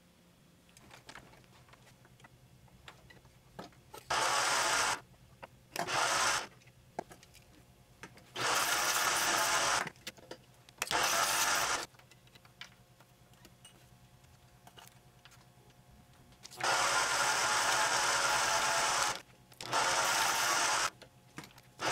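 Mini lathe machining a brass bar into a bushing: harsh cutting noise that starts and stops abruptly in several stretches of one to three seconds, with a steady motor hum in between.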